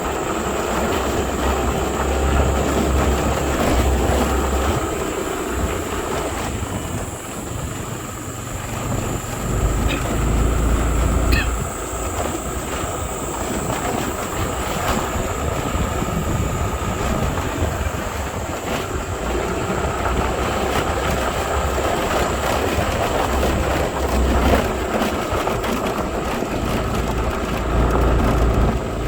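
A vehicle rumbling and rattling steadily over a rough track, with deep surges of low rumble every few seconds.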